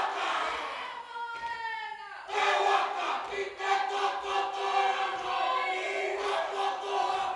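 A kapa haka group of many voices chanting and singing in unison in long held notes. The pitch slides down about two seconds in, then the voices come in louder.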